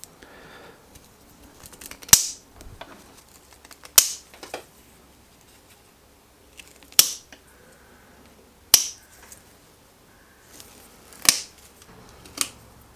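Steel bonsai knob cutters biting into Chinese elm wood, a series of about six sharp snaps a second or two apart, as a branch stub is nibbled away piece by piece.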